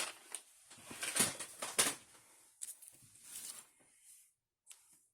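Paper being cut and handled on a paper trimmer: short scraping, rustling strokes in two clusters, about a second in and again near three seconds, then it goes quiet.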